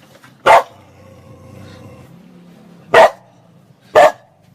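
A dog barking: three short, sharp single barks, about half a second in, at three seconds and at four seconds, with pauses between them.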